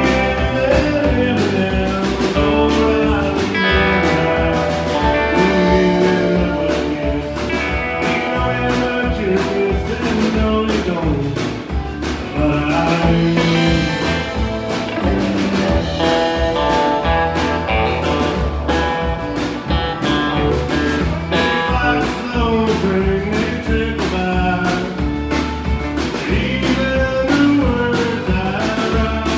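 Live country music: a man singing over acoustic guitar, with a band keeping a steady beat on drums.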